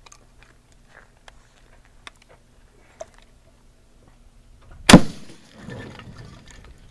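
A single 12-gauge shotgun blast from a Mossberg Maverick 88 pump-action, about five seconds in, followed by an echo that dies away over about a second and a half.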